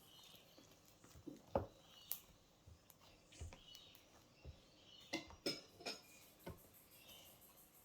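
Faint, scattered small clicks and squishes of homemade slime being handled and shaped by hand, with a quick run of several clicks about five seconds in.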